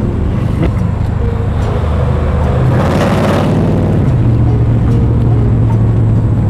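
Car engine running with a low, steady rumble, and a louder rush of noise about three seconds in.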